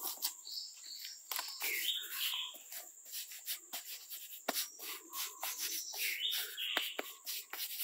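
Steady high insect buzzing with a few short high chirps over it, and many small dry scrapes and clicks of bare hands scooping and pressing loose soil.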